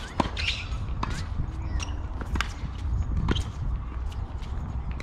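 Tennis ball struck by racquets and bouncing on a hard court during a rally: four sharp pops in the first three and a half seconds, the first the loudest, over a steady low rumble.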